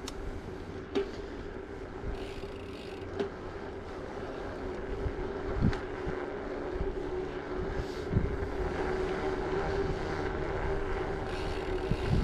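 Riding a bicycle: wind on the microphone and tyres rolling on a concrete road, with a steady hum and a few short knocks.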